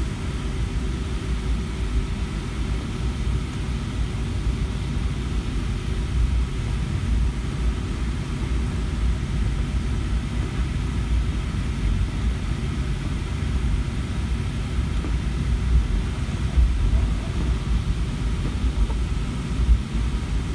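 Steady low rumble inside the cabin of a Boeing 757-200 taxiing, its engines at low power and its wheels rolling over the taxiway, with a faint steady hum and a few light bumps late on.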